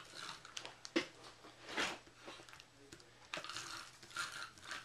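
Cardstock being handled and glue applied to it: short papery rasps and rustles with a few light taps.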